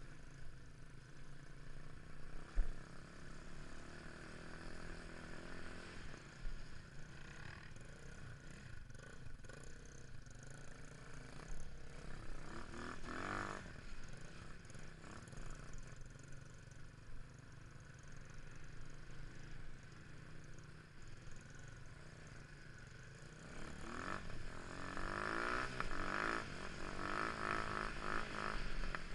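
Motorcycle engines running, with a short burst of revving about halfway through and a longer, louder stretch of revving with rising and falling pitch near the end.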